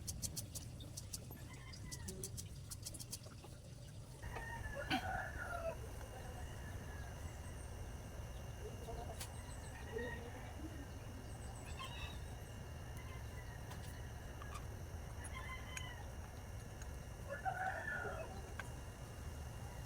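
Chickens clucking in the background, a few short calls spread through the stretch over a steady low hum, with a quick run of faint clicks in the first few seconds.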